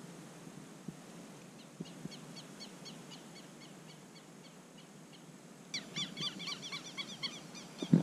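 A bird calling in a rapid series of short, sharp chirps, faint at first and louder from about six seconds in.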